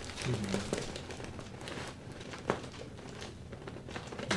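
Soft rustling and crinkling from a patient shifting on a treatment table, with a single sharp click about two and a half seconds in.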